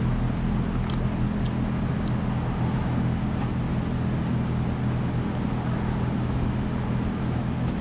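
Steady machine hum in the shop, with a few faint light clicks early on as a T-handle hex key starts the screws of the air filter housing on the blower's carburetor.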